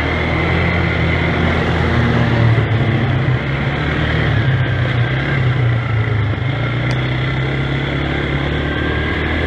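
Gehl 5240 skid-steer loader's engine running steadily, its pitch rising a little about two to three seconds in.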